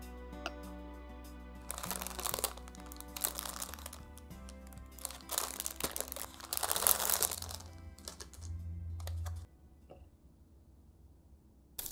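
Thin plastic packaging bag crinkling in several bursts as it is handled, over background music.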